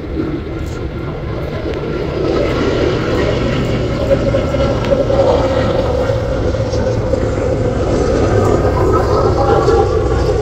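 Airbus A330 jet airliner on final approach with its landing gear down, its twin jet engines running in a steady rush with a held whine, growing louder as it comes nearer.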